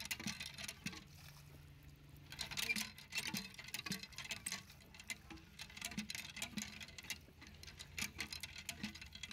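Water running from a plastic pipe and splashing onto fruit in a clay bowl as the fruit is washed by hand: an uneven spatter of drops, dipping briefly about a second in.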